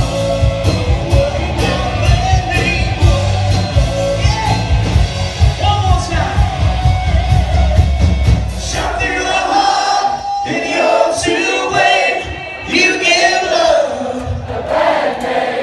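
A live rock band playing: drums, bass, electric guitar and lead vocals. About nine seconds in the drums and bass drop out, leaving voices singing and shouting with the crowd.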